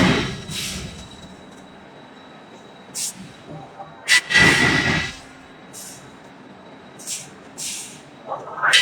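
Heavy forging-plant machinery working iron: irregular loud metallic scrapes and clanks with a ringing tone, the biggest about four seconds in and another near the end. Short high hissing bursts fall between them.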